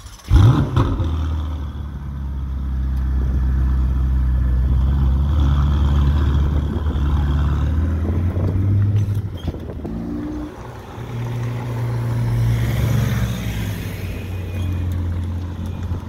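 Ferrari 488 Pista's twin-turbo V8 starting up with a sharp rev flare, then settling into a steady, low idle. Around ten seconds in the note dips and a second steady engine note, slightly higher, takes over.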